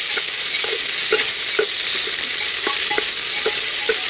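Cauliflower sizzling as it fries in hot ghee in a pressure cooker, with a spoon stirring it and knocking against the pot about twice a second.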